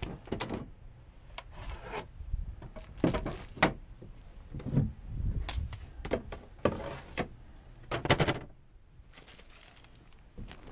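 Sailboat companionway boards being handled: a series of irregular knocks, clatters and scrapes of wood and plastic, the loudest cluster about eight seconds in.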